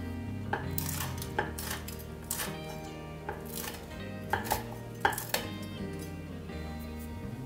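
Kitchen knife chopping dried chili peppers on a wooden cutting board: irregular sharp knocks of the blade on the board, the loudest a few seconds in.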